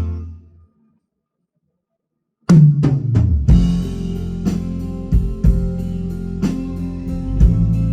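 A live band plays: a low note rings out and dies away within the first second, then after a short silence the drum kit comes in hard with kick and snare hits, together with bass and guitar, about two and a half seconds in.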